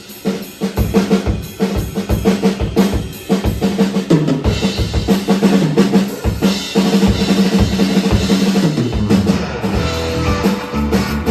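Rock drum kit playing a busy beat of kick drum, snare and rimshot strokes over a held low instrument line. About nine seconds in, more sustained notes from the band come in.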